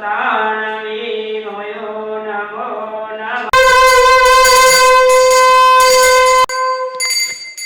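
A voice chanting in a wavering melody, then a conch shell (shankha) blown in one long, loud, steady note for about three seconds that cuts off abruptly. A bell rings briefly near the end.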